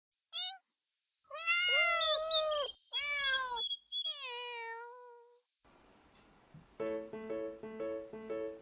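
Cat meows: a short one, then a long drawn-out meow, a quick one, and a meow that falls away. Light plucked-string music with a steady beat starts near the end.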